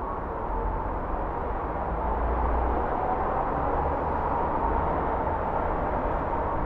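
Steady city traffic noise, a low rumble of passing vehicles that swells slightly about two seconds in.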